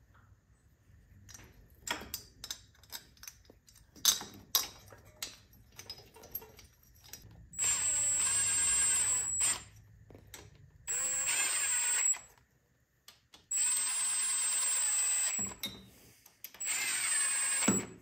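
Power drill running cylinder head bolts down, in four short runs of steady motor whine of about a second or a little more each. Before them comes a scatter of clicks and knocks.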